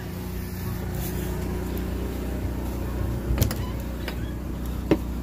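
Portable generator running with a steady hum. Two sharp clicks, a little over three seconds in and near the end, as the trailer's door is handled and opened.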